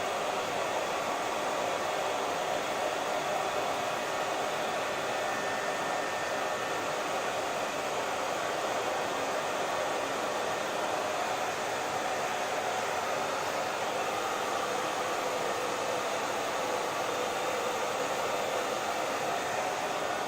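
Hair dryer blowing steadily, a constant even whoosh of air and motor.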